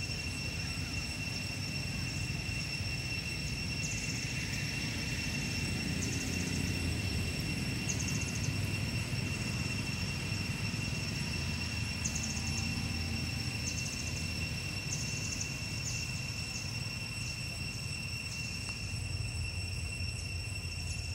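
Outdoor ambience: a steady low rumble under a constant high-pitched drone, with short rapid chirping trills every second or few. No monkey calls stand out.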